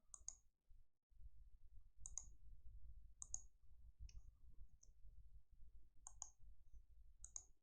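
Scattered clicks of a computer mouse and keyboard keys, about one a second and sometimes two close together, over faint low room noise.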